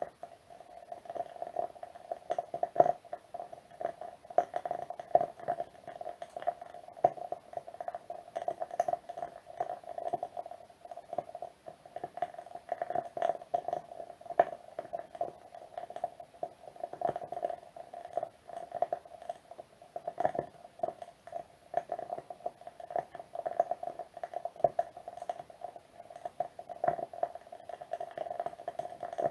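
Wood wick candle crackling: a dense, irregular stream of small pops and ticks, with a few louder pops now and then.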